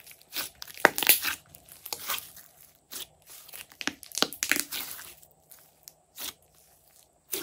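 Glossy slime squished and pressed by hand: irregular wet squelches and crackling pops, busiest about a second in and again around four to five seconds in, thinning to a few single pops near the end.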